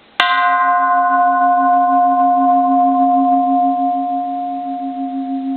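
A 1930s bronze Japanese Buddhist temple bell struck once with its striker, then ringing on in a long hum. The low tone pulses slowly and a clear higher tone holds steady, while the brighter overtones die away within a couple of seconds.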